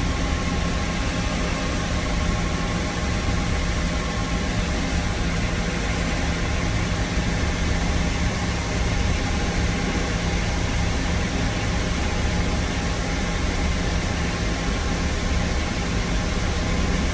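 Tractor engine running steadily, heard from inside the closed cab as an even drone with a few fixed tones over a constant hiss.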